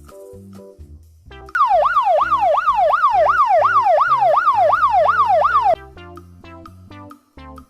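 Emergency-vehicle siren wailing in fast up-and-down sweeps, about two and a half a second, starting about a second and a half in and cutting off suddenly about four seconds later, over light background music.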